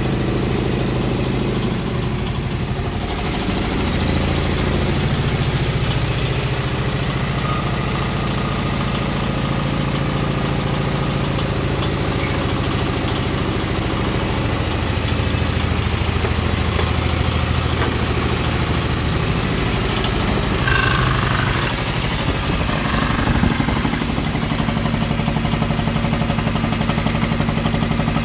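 Engine of a small wooden river boat running underway, a steady low drone whose pitch shifts up and down a few times as the engine speed changes.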